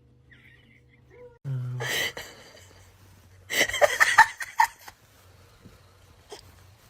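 A person laughing, with a short loud pitched sound just before it, about a second and a half in.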